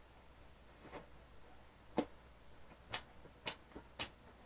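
Chewing a mouthful of burger with the mouth closed: a handful of short, sharp mouth clicks and smacks, roughly a second apart, over a quiet background.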